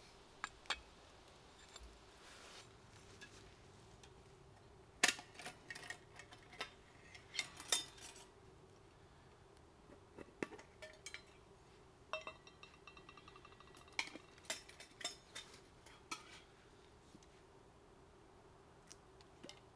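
Metal camp cookware and utensils clinking and knocking in irregular clicks, in bunches about five and seven to eight seconds in, with a short rattling patch around twelve seconds.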